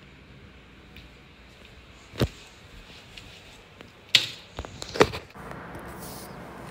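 Handling knocks from a camera phone being moved and set down on a table: one sharp knock about two seconds in, then several louder knocks and bumps between four and five seconds.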